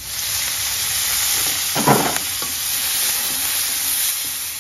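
Chilies, shallots and tomato sizzling in hot oil in a steel wok, stirred with a metal spatula: a steady frying hiss that starts suddenly, with one brief louder sound about two seconds in.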